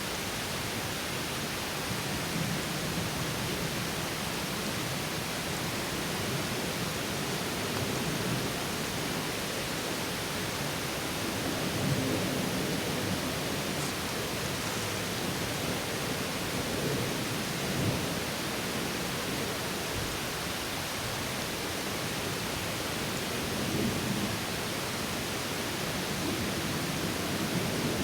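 Small stream water pouring over a low drop, a steady rushing splash with small swells in level.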